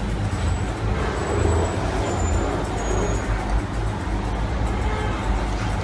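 Steady low rumbling background noise, like road traffic, with no clear single event.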